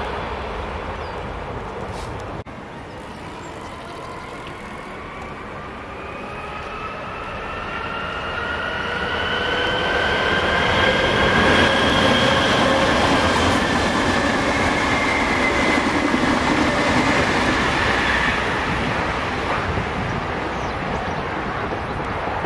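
S-Bahn München electric train passing close, its electric drive whining in several tones that rise in pitch as it gathers speed and then hold steady, over the rumble of wheels on rail. The sound builds to its loudest about halfway through.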